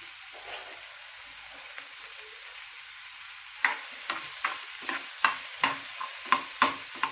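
Chopped onions sizzling steadily in hot oil in a frying pan. From about halfway, a spatula stirs them, scraping and knocking against the pan about three times a second.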